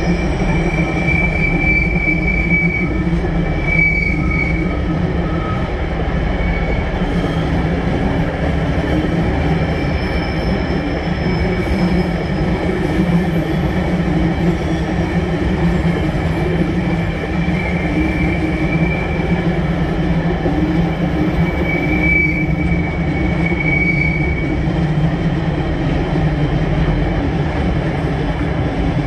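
Empty steel ore wagons of a freight train rolling past at close range: a steady rumble of wheels on rail, with a high wheel squeal that comes and goes several times.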